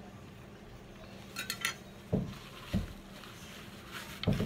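A few light clinks and soft knocks of a plate and tableware on a wooden table: a quick run of three sharp clinks about a second and a half in, then dull knocks around two seconds in and near the end, over a faint steady hum.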